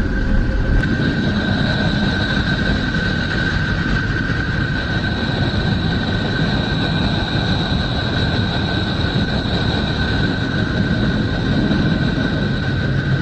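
Steady, eerie space-ambience drone presented as the sound of the planet Neptune: a low rumble and rushing noise with two high, steady whining tones held through it.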